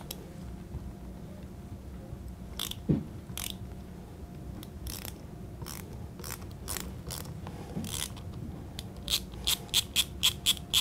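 Hand screwdriver backing out the strain screw in a Smith & Wesson Model 29 revolver's grip frame, releasing mainspring tension. A few scattered clicks come first, then a run of evenly spaced clicks, about three a second, near the end.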